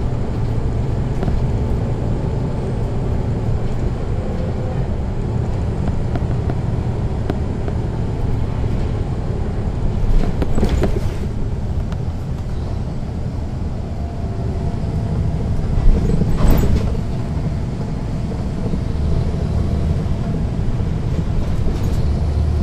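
Caterpillar C13 ACERT inline-six diesel of a NABI 40-foot transit bus running steadily, with a ZF Ecomat automatic transmission, heard from the rear seats inside the bus. Two short bursts of sharp knocking break through, about ten and sixteen seconds in, the second the loudest.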